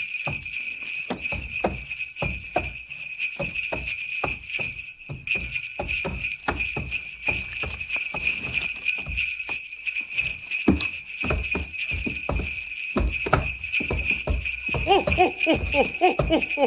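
Sleigh bells jingling steadily, with a short break about five seconds in, over irregular thumps and knocks, staged as reindeer hooves and footsteps on a roof. Near the end a deep voice begins a 'ho ho ho' laugh.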